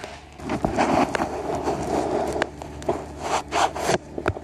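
Rubbing and scraping handling noise with scattered sharp clicks, as the camera is moved in close among the engine parts.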